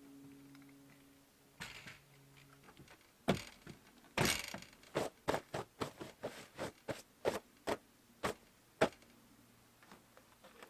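Boots stomping and knocking on wooden porch boards, likely to shake off snow: a run of sharp knocks, about two or three a second, that stops a couple of seconds before the end.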